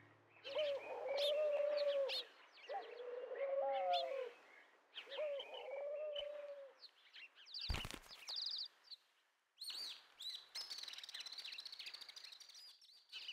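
A bird calls four times in a row, each a low call about a second and a half long. About 8 seconds in there is a single knock, and after it small birds chirp, high-pitched and quick.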